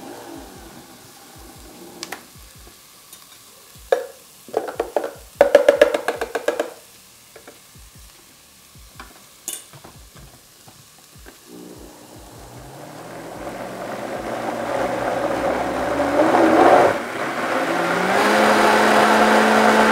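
High-speed countertop blender pureeing grilled squash with water: a few short loud bursts of the motor about four to six seconds in, then the motor starting low and stepping up in pitch and loudness as the speed dial is turned up, ending at a steady high-speed whine. Faint sizzling from vegetables softening in a pot runs underneath.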